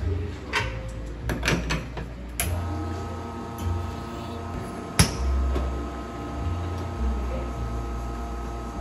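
Espresso machine work: clicks and knocks of a metal portafilter being handled and locked into the group head, then a steady pump hum from about two and a half seconds in as a shot is pulled, with one sharp click about five seconds in.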